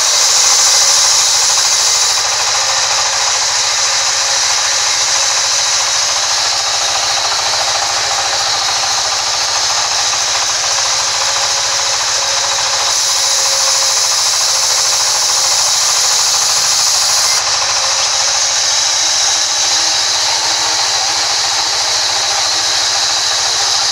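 Sawmill band saw cutting lengthwise through a large log, a steady, loud, high-pitched hiss of the blade in the wood over the hum of the machine.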